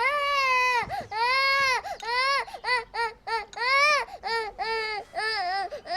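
A young child crying hard: a run of high wailing sobs, the first few long and drawn out, then shorter and quicker.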